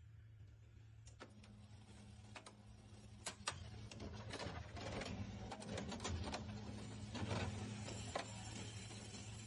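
HP LaserJet Pro MFP M227fdn laser printer running a test print with its newly fitted pickup roller. Its motor starts about a second in, and a run of clicks and rattles from the paper pickup and feed follows, busiest in the middle and later part.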